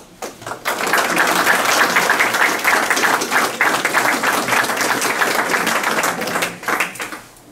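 Audience applauding. The clapping builds within the first second and dies away near the end.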